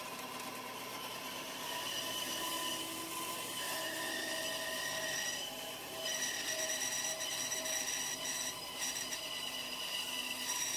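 Small bench-top bandsaw running and cutting through a block of resin-rich old pine heartwood, a steady machine hum with several held tones over the hiss of the cut. The sound dips briefly a little before six seconds in, then runs slightly louder.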